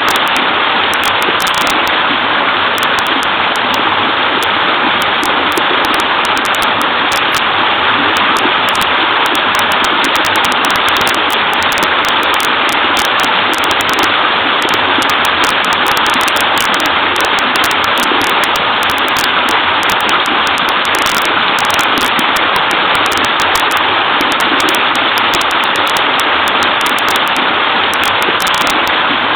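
Small waterfall pouring and babbling, a steady loud rush of water without a break.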